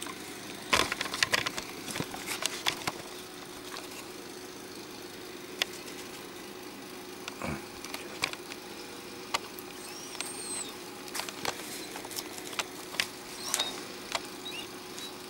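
Steady hum with a faint held tone, broken by a quick run of clicks and knocks about a second in and single clicks scattered through the rest, with a few faint high squeaks near the middle.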